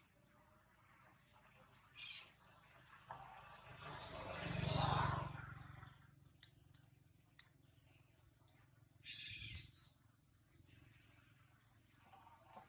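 Short, high-pitched animal chirps and calls, with one longer high call about nine seconds in. A broad swell of noise builds and fades around the middle.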